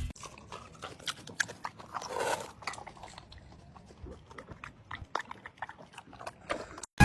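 Small animal sounds among scattered faint clicks and taps, a little louder about two seconds in.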